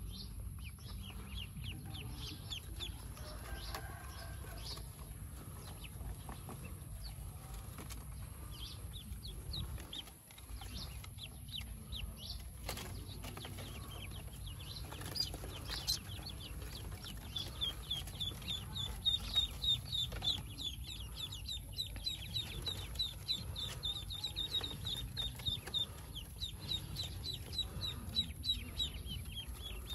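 Newly hatched Pekin ducklings peeping: a rapid stream of short, high, falling peeps that grows denser and louder about halfway through, over a low steady rumble.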